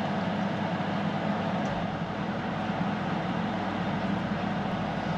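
Small window air conditioner running: steady fan noise over a constant low hum.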